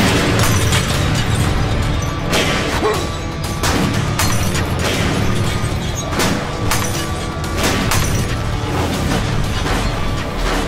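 Film battle soundtrack: dramatic score over a string of explosions and bangs, about one every second, with a continuous low rumble underneath.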